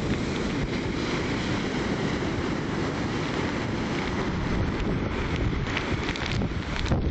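Wind rumbling on the microphone over the steady wash of heavy storm surf breaking on the beach, surf raised by an approaching hurricane.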